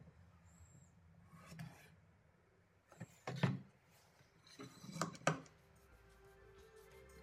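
Round wooden rods being set down and rolled on a plywood jig: several light wooden knocks and clunks, the loudest about three and a half seconds in and again about five seconds in.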